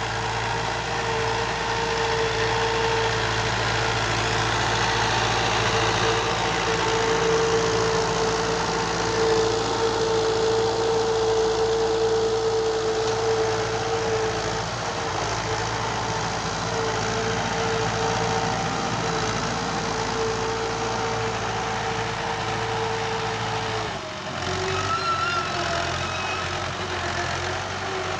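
Fiat 640 tractor's four-cylinder diesel engine running steadily as it pulls a disc harrow through the field, with a steady whine over the drone that drops away near the end.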